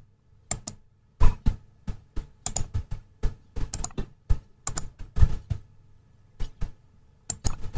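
Computer keyboard keys and mouse buttons clicking in an irregular string of taps, several a second, with short pauses between runs.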